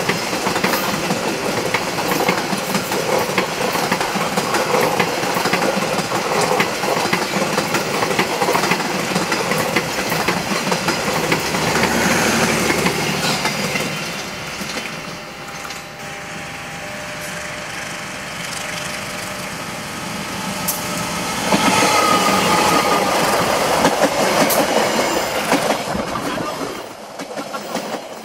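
Long locomotive-hauled passenger train passing close by at speed: a steady rumble and rattle of carriages and wheels on the rails. The noise eases off about halfway through, then swells again for several seconds before dropping near the end.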